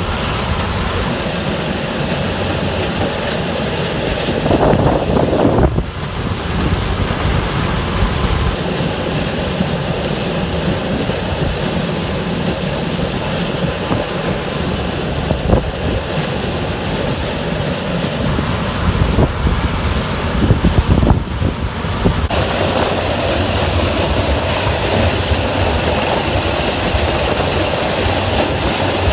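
Tractor-driven corn harvesting machine working, with the Swaraj 855 tractor's diesel engine and the machinery running steadily. The sound changes abruptly about six seconds in and again about 22 seconds in.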